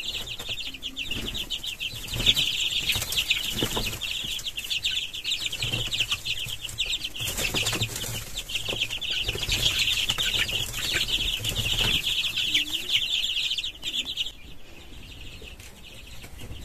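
A flock of young, newly feathered chicks peeping continuously in rapid high chirps, with wing flapping as they flutter about; the peeping dies down near the end.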